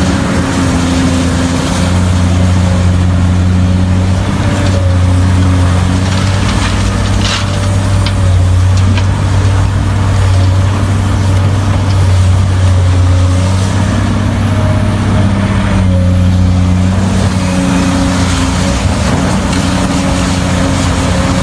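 Heavy diesel engines of mining machinery running, their note shifting in pitch a few times, with a few short knocks about seven to nine seconds in.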